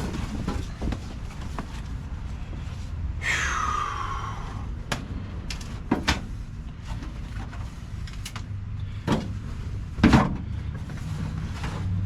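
Knocks and clunks of parts and hand tools being handled while a truck cab interior is stripped, the loudest about ten seconds in. About three seconds in there is a squeal that falls in pitch over about a second.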